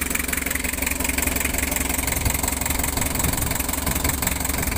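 Isuzu 4BA1 four-cylinder diesel engine idling steadily. It has just had a top overhaul and is being left running to break in its new piston rings and cylinder liners.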